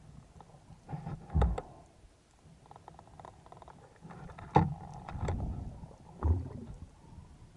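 Underwater, muffled knocks and thumps from a spearfisher's movements and gear, several irregular ones, some with sharp clicks.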